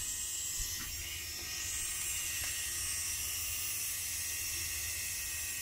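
DIY CNC foamboard needle cutter running: its small motor spins the flywheel that drives the cutting needle up and down, making a steady high-pitched buzz while the machine cuts foam board.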